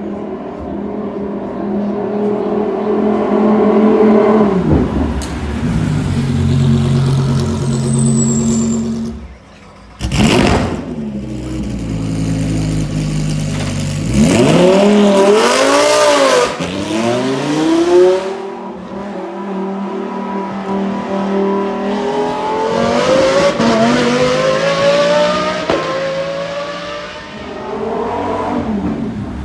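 Lamborghini Huracán Super Trofeo race car's V10 engine idling, blipped hard several times in quick succession around the middle, then revs rising steadily near the end as the car moves off.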